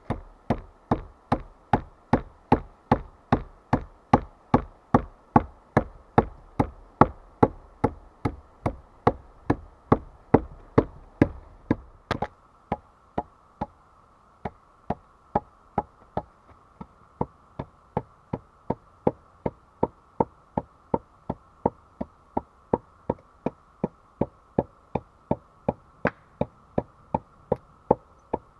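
Rapid, evenly spaced blows of a hand tool on wood, about three a second. The strikes land with a heavier thud for the first twelve seconds, then go on a little lighter and less even.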